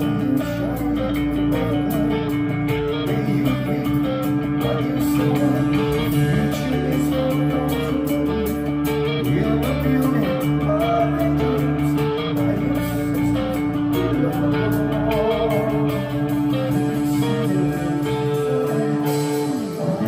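Live rock band playing: electric guitar, bass guitar and drums, with long held notes at a steady, loud level.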